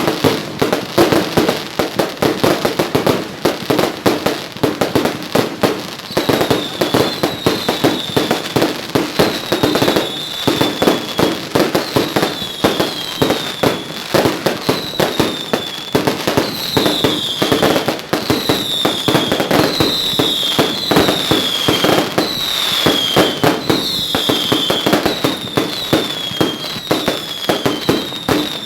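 A continuous fireworks barrage: dense, rapid pops and crackles with no break. From about six seconds in, short falling whistles repeat roughly every second over the bangs.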